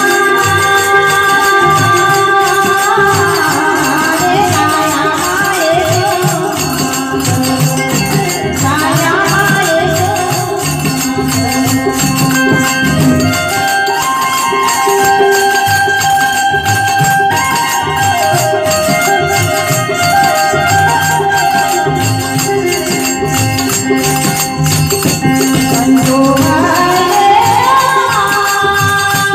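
A woman singing a Gujarati bhajan to harmonium accompaniment, with percussion keeping a fast, steady beat.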